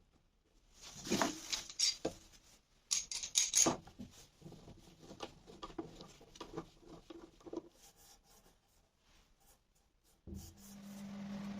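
Irregular knocks, clicks and rubbing, as of wooden pieces and small parts being handled, trailing off into light ticks and then a pause. Near the end a steady low hum starts.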